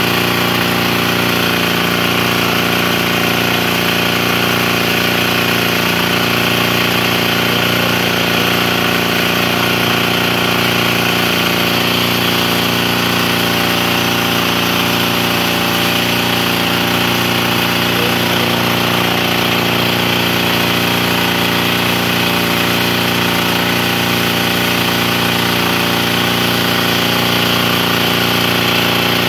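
Small stationary engine on a belt-and-pulley torque test rig running steadily at an unchanging speed.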